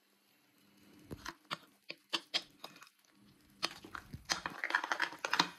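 Metal spoon stirring thick wet henna paste in a glazed ceramic bowl, with irregular squelches, scrapes and clicks as the spoon knocks against the bowl. The stirring starts sparse and gets busier and louder in the last two seconds.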